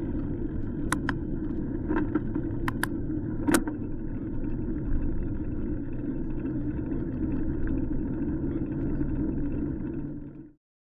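Steady low rumble with several sharp clicks during the first four seconds; it cuts off abruptly near the end.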